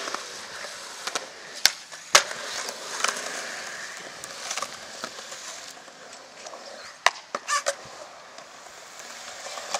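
Skateboard wheels rolling on a concrete skate park surface, broken by several sharp clacks of the board striking the concrete, the loudest about two seconds in and a pair near seven and a half seconds.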